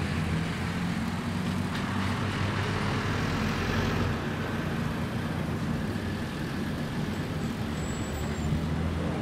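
Steady low hum of a running engine under a constant wash of outdoor noise, like road traffic.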